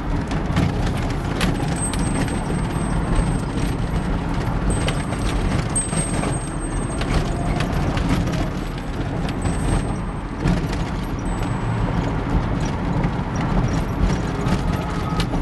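Steady road and engine noise of a car heard from inside the cabin while driving, with frequent light clicks and knocks throughout.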